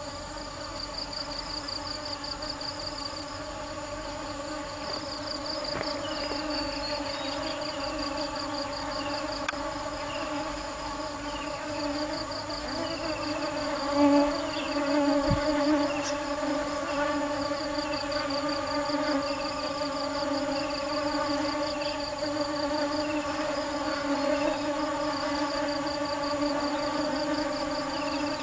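Honey bees buzzing in a steady hum. Higher up, a fast insect trill and short chirps repeat about once a second.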